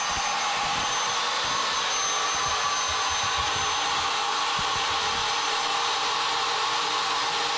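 Router spindle of a Bob's CNC E4 machine running steadily at speed, a continuous whirring hiss with a faint high-pitched whine.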